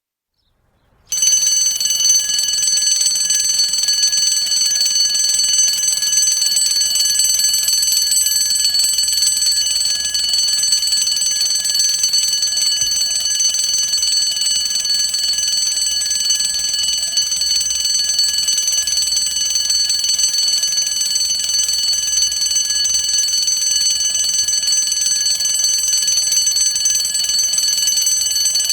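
Retro bell alarm clock ringing continuously, starting suddenly about a second in and ringing on without a break.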